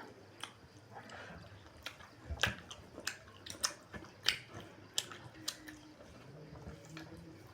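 Close-up eating sounds of pork and rice: irregular chewing with sharp mouth clicks and smacks, roughly one or two a second.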